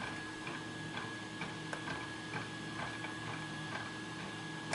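Faint, irregular small metallic clicks and ticks of a lock pick working the pin tumblers of a Chris Ahrens custom pin-tumbler lock held under tension, with a steady faint hum beneath.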